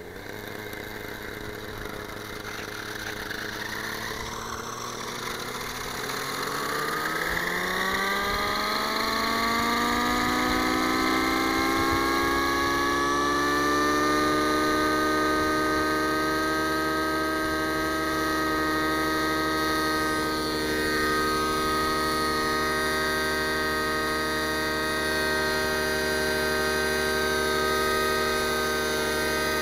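JR Vibe 55 RC helicopter's O.S. nitro glow engine and rotor head spooling up from idle, the whine rising in pitch over several seconds and then holding steady at flight speed as the helicopter lifts into a low hover.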